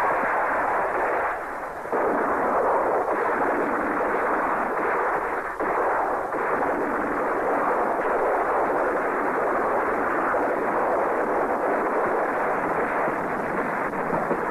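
Battle-scene sound track of dense, continuous gunfire with explosions, many shots running together, dipping briefly about a second and a half in and again near six seconds.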